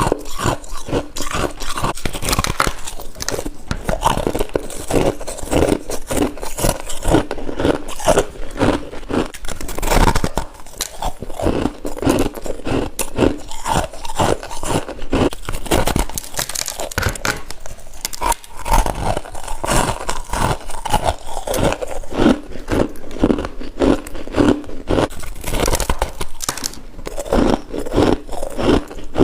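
Freezer frost being bitten and chewed close up: a steady run of crunches with no real pause.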